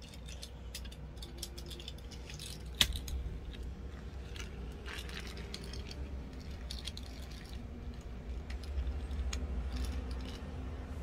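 Die-cast toy cars clicking and tapping as they are handled, set down and pushed along a tabletop play road, with one sharp click about three seconds in.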